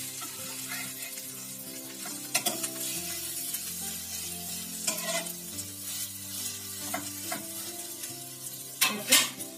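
Egg-dipped bread slices sizzling in butter in a frying pan as they are turned over with a spatula. Now and then the spatula scrapes and taps against the pan, loudest near the end.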